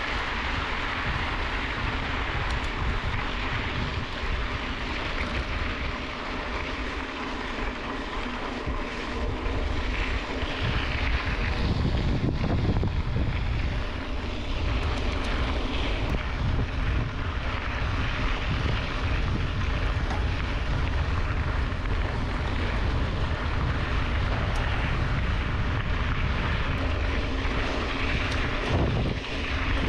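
Wind buffeting a handlebar-mounted action camera's microphone, with the tyres of a moving mountain bike rolling on a dirt road underneath. The low rumble gets stronger about twelve seconds in.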